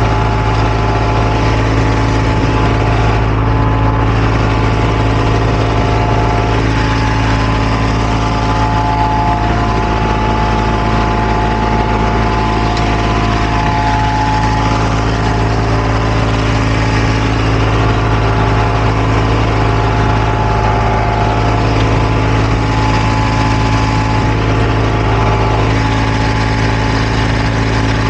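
Diesel engine of asphalt-paving machinery running steadily at a constant speed: an even low hum with fainter higher tones held over it.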